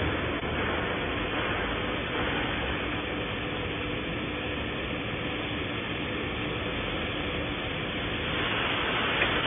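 A handheld fiber laser welding machine, used as a cutter, slicing through 2 mm carbon steel plate. It gives a steady hiss with a faint low hum under it, growing slightly louder near the end.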